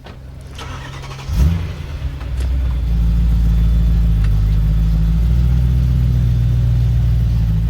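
Sports car engine starting: a short crank, then it catches with a loud flare about a second and a half in and settles into a steady, loud idle.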